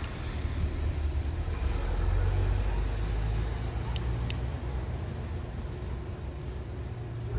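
Renault Triber's engine idling, a steady low rumble, with two faint high clicks about four seconds in.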